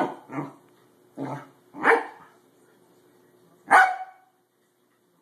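Corgi barking at a springy door stop: several short barks in the first two seconds, then one sharp, louder bark near four seconds in.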